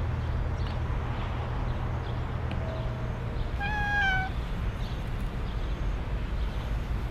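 Norwegian Forest cat giving a single short, high meow about halfway through, dipping slightly in pitch at the end.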